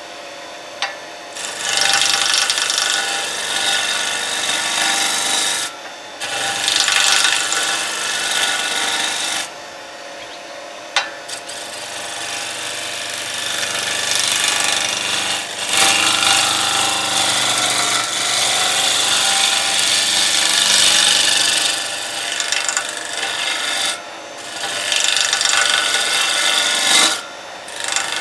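Turning gouge cutting a spinning golden cypress (Cupressus macrocarpa) spindle on a Record Power Coronet Herald wood lathe: a rushing shaving sound in passes of a few seconds each, broken by short pauses where only the lathe motor's steady hum is left.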